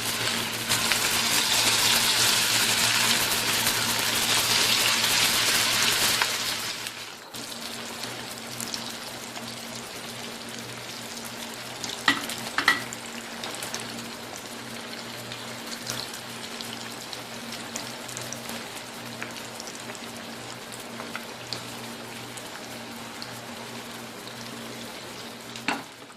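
Masala-coated mutton pieces deep-frying in hot oil. The sizzle is loud for the first six seconds or so, then drops suddenly to a quieter steady sizzle. A couple of light clicks come near the middle.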